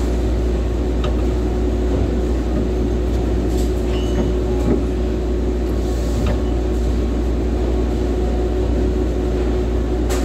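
Steady machinery drone with a constant hum, and a few light clicks as the motor is handled.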